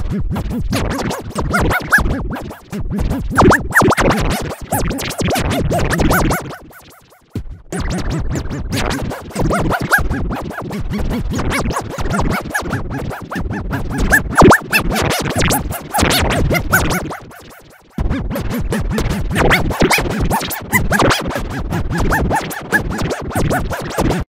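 Electronic remix music with rapid chopped, record-scratch-like stutter effects, dropping out briefly twice, about seven and eighteen seconds in.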